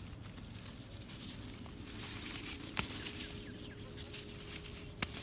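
Bean plant leaves rustling and a thin plastic glove crinkling as a hand works through the plants to pick green beans, with two sharp clicks a couple of seconds apart.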